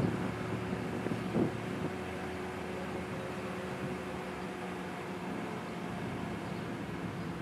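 Steady low hum with wind noise from an Amtrak Acela Express trainset approaching in the distance, no horn sounding. A brief bump about a second and a half in.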